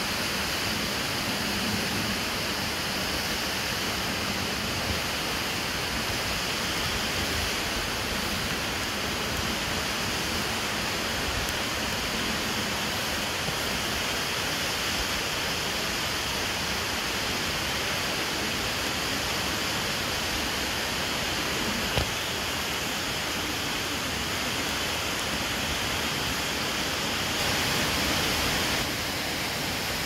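The Todtnau Waterfalls cascading down a rock face: a steady rush of falling water. A single short click comes about two-thirds of the way through.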